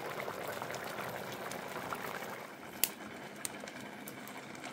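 Meat stew in a tomato-and-chile sauce simmering in a clay cazuela, with a steady, fine bubbling. There is a sharp click about three seconds in.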